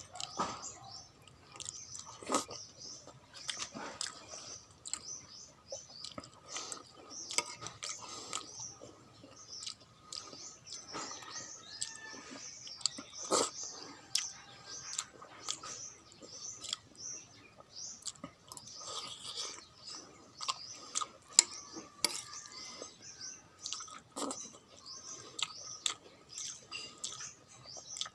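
A person eating pork soup: chewing, with short mouth noises and scattered sharp clicks throughout.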